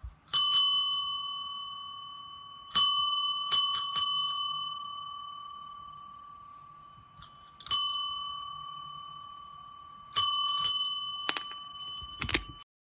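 A small metal bell is struck again and again at uneven intervals, about eight times, and each ring dies away slowly. A few knocks come near the end, then the sound cuts off.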